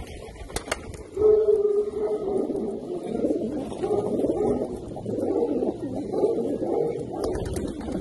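A flock of homing pigeons cooing, many calls overlapping into a continuous low burble that starts about a second in.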